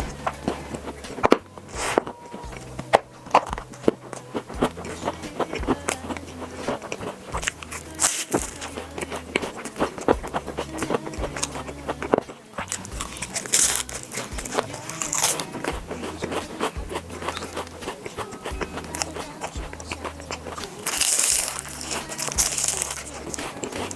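Crunchy biting and chewing close to the microphone, with many sharp, irregular crunches, over background music with a steady bass line.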